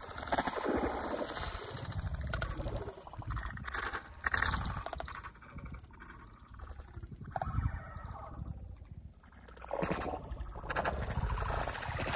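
Shallow lake water sloshing and splashing while a lure is worked across the surface, with a sharp loud splash about four seconds in. At the very end a snakehead strikes the lure and the splashing grows loud.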